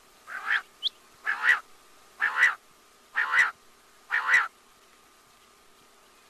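Quail calling: five short calls about a second apart, each in two quick parts, over a faint steady hum.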